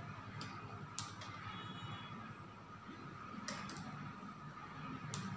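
Computer keyboard typing, a few single keystrokes with pauses of up to a couple of seconds between them, over faint steady background noise.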